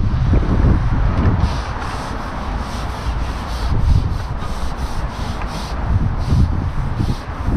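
Wind buffeting the microphone in a low rumble, with a run of short scratchy rasps about twice a second starting about a second and a half in.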